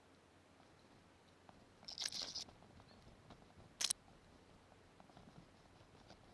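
Quiet woodland with a short crunching rustle, like twigs and leaves underfoot, about two seconds in, then a single sharp click a little later.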